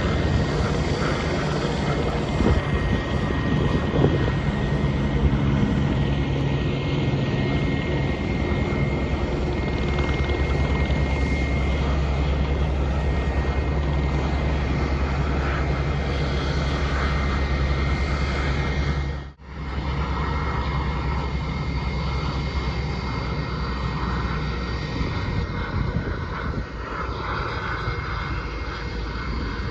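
Jet engines of a Virgin Australia twin-jet airliner running at taxi power: a steady high whine over a low rumble. The sound cuts out for an instant about two-thirds of the way through, then carries on with less rumble.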